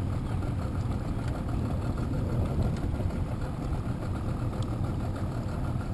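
Small boat's motor idling steadily, a constant low rumble, as the boat creeps along a crab trotline.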